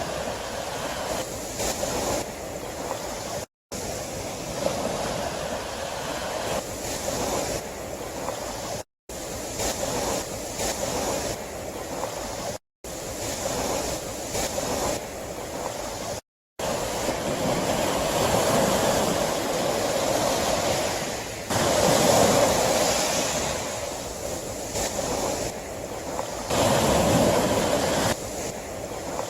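Sea waves washing on the shore in a steady rush that swells and eases, with the biggest surges near the end. The sound cuts out to silence for a moment four times in the first half.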